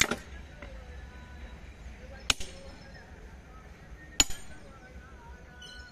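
Hammer striking a steel elastic rail clip on a railway sleeper, driving the clip into its insert: four sharp metal clanks about two seconds apart, each with a lighter bounce just after and a brief ring.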